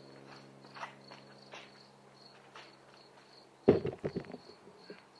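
Crickets chirping in a steady, pulsing high trill over a low steady hum. A short burst of knocks and rattles comes about three and a half seconds in.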